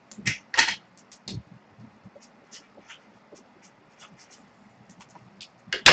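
Ballpoint pen writing on paper: two louder taps within the first second, then light, scattered scratching strokes and ticks.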